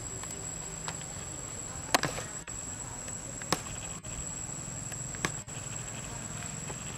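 Steady high-pitched insect drone, with three sharp clicks about two, three and a half and five seconds in, the first the loudest.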